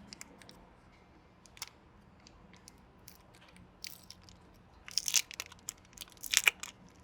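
Tire repair kit being handled: scattered light clicks of tools and parts, with two louder bursts of crinkling, crunching rustle about five and six and a half seconds in.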